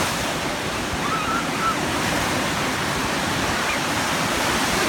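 Waves breaking and washing in, a steady rushing noise.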